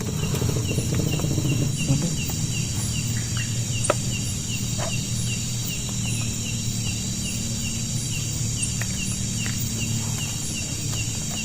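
Insects chirping in a steady outdoor chorus, with one regular chirp repeating a few times a second, over a steady low hum and a few scattered clicks.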